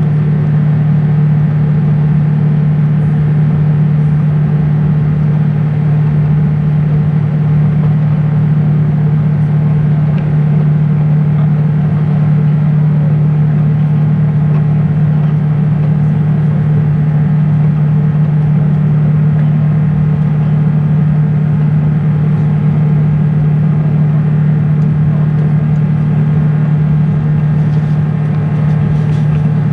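Airbus A350-900 cabin noise during the climb after takeoff: the steady drone of its Rolls-Royce Trent XWB turbofans and the rush of air past the fuselage, with a strong, even low hum underneath.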